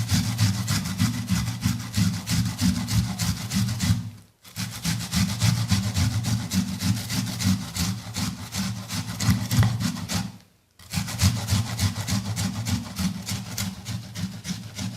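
Peeled raw onion being grated by hand on a grater over a plate: rapid, even back-and-forth rasping strokes, with two short pauses about four and ten seconds in.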